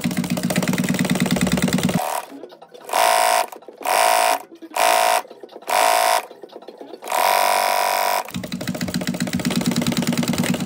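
Industrial sewing machine stitching: a steady fast run, then five short high-pitched bursts of running from about three to eight seconds in, then a steady run again.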